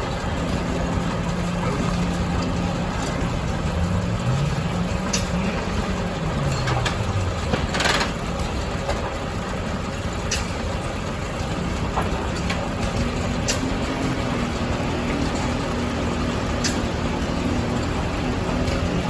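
Steam-tractor-driven sawmill running: a steady machinery hum whose pitch shifts a little, with a second tone rising and falling briefly, scattered sharp clicks, and a short hiss about eight seconds in.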